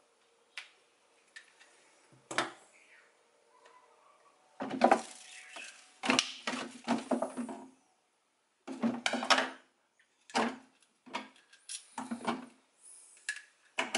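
Hard items knocking and clinking as they are handled and set down, in several short clusters of clatter with quiet gaps between.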